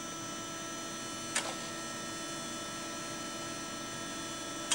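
Steady electrical hum from video equipment, with several high, steady whining tones over it, broken by a single short click about a second and a half in.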